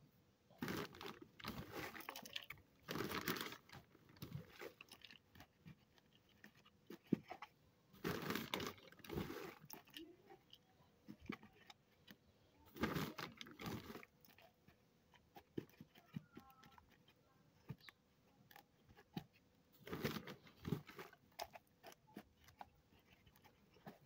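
Hands pressing and packing loose potting soil into a pot around a jade plant's trunk: irregular crunching, rustling scrapes in several short bursts with quiet gaps between.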